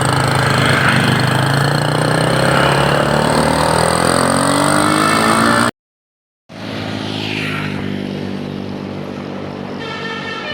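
Vehicle engine accelerating, its pitch rising steadily for about five seconds, then the sound cuts out completely for under a second and returns as a steadier engine run. Near the end a multi-tone 'telolet' bus horn starts to sound.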